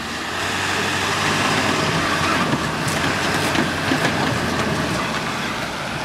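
A pickup truck's engine running under load as it tows a Volvo 240 with a locked steering wheel, the Volvo's tyres scuffing and grinding over the asphalt as it is yanked along. The sound is a steady rumble with a few knocks and scrapes around the middle.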